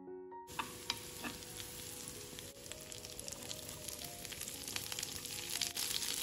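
Piano music cuts off about half a second in. Then chopped garlic and sliced vegetables sizzle in hot oil in a nonstick frying pan, with scattered clicks of a metal spoon against the pan as they are stirred. The sizzle grows louder in the second half.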